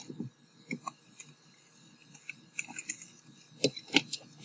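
Thick brownie batter being stirred by hand in a bowl: scattered soft scraping and knocking strokes at first, then quicker regular stirring strokes picking up near the end.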